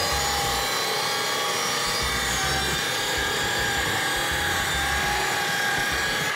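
Hikoki 36V brushless cordless circular saw cutting through plywood in its silent mode: the rasp of the blade through the wood over a steady, high-pitched motor whine. In silent mode the motor is a little quieter, while the cutting noise stays just as loud.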